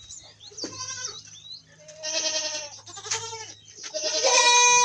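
Goats bleating: a few separate calls, the last one near the end the loudest and longest.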